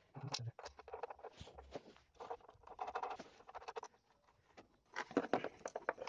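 Irregular light clicks and scrapes of metal hardware as a nut is tightened down on a motor mounting bolt.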